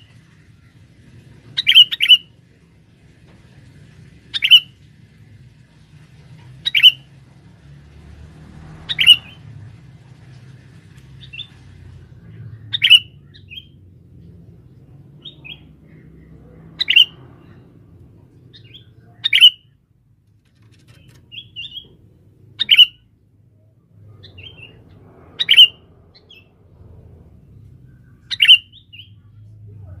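Sooty-headed bulbul (kutilang) calls: a short, sharp call every two to four seconds, with fainter chirps between them. It is a bird-trapping lure call meant to draw in wild males.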